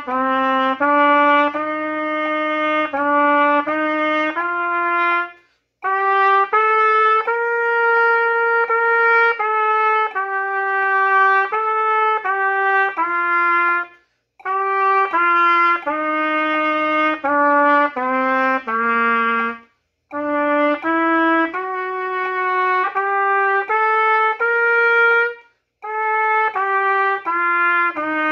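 Trumpet playing a simple beginner's duet at a moderate tempo, steady held notes moving stepwise, with four short breath pauses between phrases.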